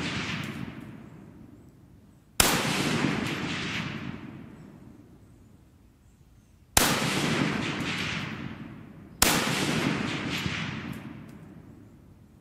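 Walther Gewehr 41 semi-automatic rifle firing 7.92×57mm Mauser: three single shots a few seconds apart, each followed by a long echo dying away.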